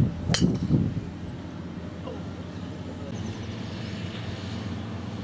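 A golf club striking a ball off the tee: one sharp click about a third of a second in.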